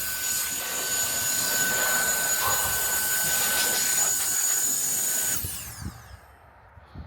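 Cordless electric air duster running: a steady rushing blast of air with a high motor whine. It is switched off about five seconds in and spins down with a falling whine, followed by a faint knock.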